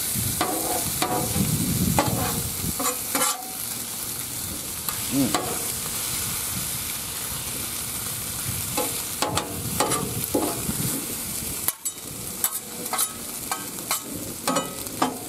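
Beef strips, onions, mushrooms and green peppers sizzling steadily on a Blackstone flat-top griddle, while a slotted metal spatula scrapes and clacks against the steel surface as the food is stirred. The scraping comes in spells, over the first few seconds and again from about nine seconds in.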